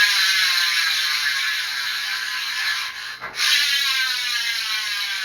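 Colony Wasp BMX cassette hub freewheeling as the wheel coasts: its ratchet clicks in a loud, fast buzz whose rate slowly falls. It breaks off briefly about three seconds in and starts again at full speed, then slows again.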